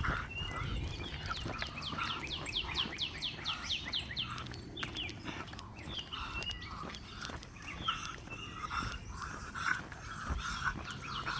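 Songbirds chirping, with one bird giving a fast trill of falling notes, about eight a second, lasting roughly two seconds from about a second in.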